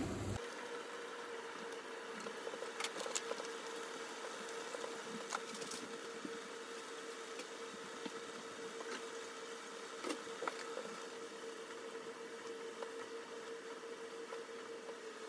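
A stainless pot of water boiling with mugwort leaves blanching in it: a steady bubbling hiss over a constant hum, with scattered small pops and clicks.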